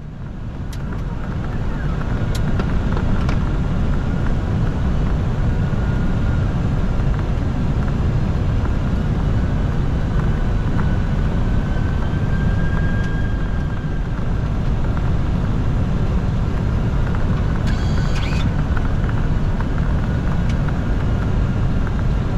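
Steady low rumble on a Boeing 747-400F flight deck, with a faint whine running through it. A few faint clicks and a short high-pitched tone come about 18 s in.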